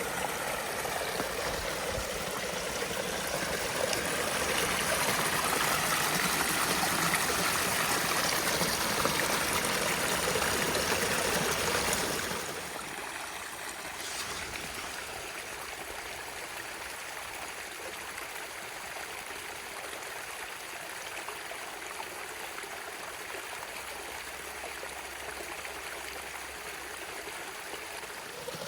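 Running water of a forest stream, a steady rushing hiss. It grows louder for a while, then drops suddenly to a quieter, even rush about twelve seconds in.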